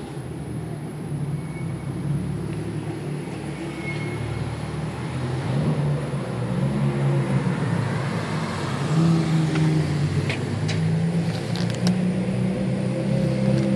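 Car engine running with a steady low note, growing gradually louder as the car draws near. A few sharp clicks come near the end.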